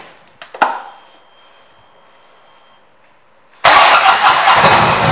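Harley-Davidson Switchback's V-twin, fitted with an aftermarket exhaust, started up. A click about half a second in, then quiet. A little over three and a half seconds in the engine cranks and fires suddenly and loudly, settling into a steady idle.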